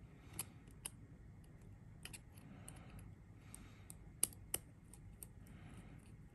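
Small precision screwdriver clicking and scraping against the metal post screws of a Hellvape Fat Rabbit RTA's build deck while the coil leads are secured: scattered light clicks, the two sharpest a little after four seconds in.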